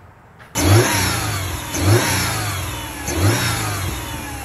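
Turbocharged Subaru WRX flat-four engine revved in short throttle blips, about one every 1.3 s, four in all, each followed by a falling whoosh through the open aftermarket cone-filter intake. The engine sound comes in abruptly about half a second in.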